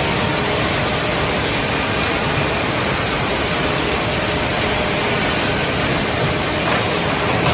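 Woodworking finger-joint line running steadily: a constant loud machine noise with a few faint steady tones in it.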